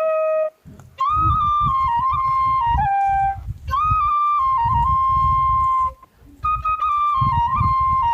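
Background music: a flute melody in long held notes and short ornamented phrases, with a pulsing low beat underneath and brief breaks between phrases.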